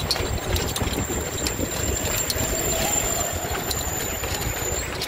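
Rumble of a moving open tourist carriage ride, with sharp clicks coming two or three times a second.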